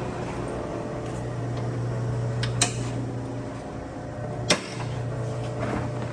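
A steady low hum with two sharp knocks about two seconds apart, the first a little before the middle and the second about two seconds later.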